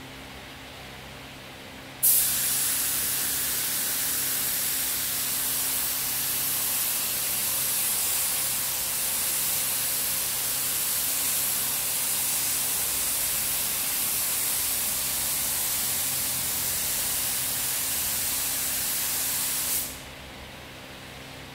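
SATAjet 5000 RP spray gun with a 1.3 nozzle spraying paint: a loud, steady hiss of atomising air that starts suddenly about two seconds in and cuts off near the end. A faint steady low hum lies underneath.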